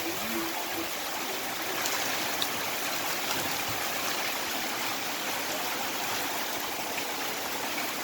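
Rain falling steadily: a continuous even rush of water.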